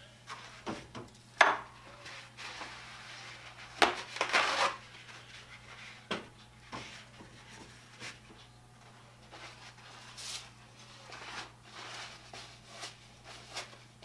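Paper towels pulled and torn off a roll and crumpled in the hands at a workbench, with scattered knocks and a rustling stretch about four seconds in. A faint steady hum runs underneath.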